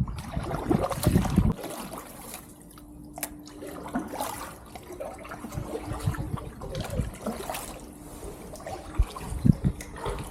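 Kayak paddle working through canal water: irregular splashes and trickling drips off the blade, roughly one every second or so.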